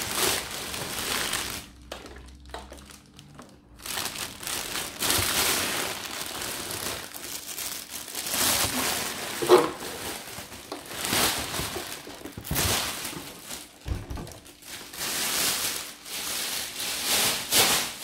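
Thin clear plastic bag crinkling and rustling in irregular bursts as it is pulled off a machine, with a short lull about two seconds in.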